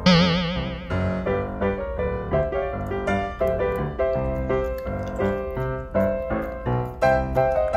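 Background piano music, notes struck in an even rhythm. At the very start a brief loud warbling sound, wavering quickly in pitch, lies over it for under a second.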